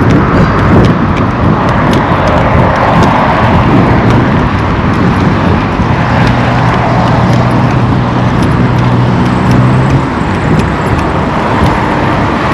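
Road traffic: motor vehicle engines running along a busy road, with a steady engine drone that holds for several seconds in the middle and then fades.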